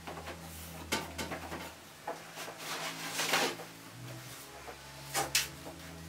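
Wire coat hanger scraping and clicking against the metal drum and tub of a Dyson CR01 washing machine, fishing for the metal fragments that jammed the drum. A series of knocks and scrapes, the loudest a rasping scrape around the middle and two sharp clicks near the end, over a low steady hum.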